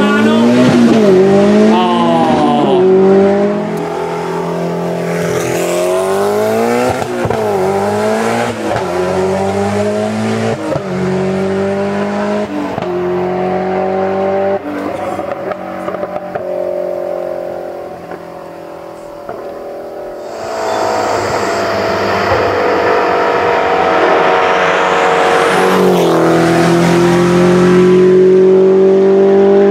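Peugeot 205 T16 Group B rally car's turbocharged four-cylinder engine revving hard under full acceleration, its pitch climbing and dropping sharply at each gearshift. The sound fades away between shifts, then grows loud again as the car comes up through the gears towards the listener near the end.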